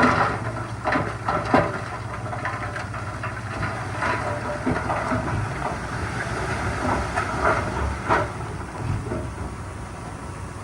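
D31 crawler bulldozer's diesel engine running steadily, with irregular metallic clanks and rattles from the machine as it works.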